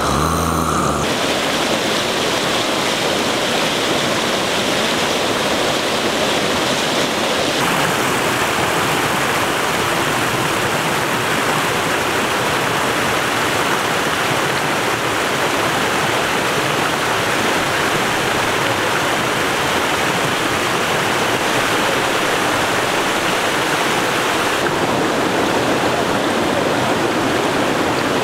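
Shallow rocky stream rushing and splashing over boulders: a steady, loud rush of water whose tone shifts a few times.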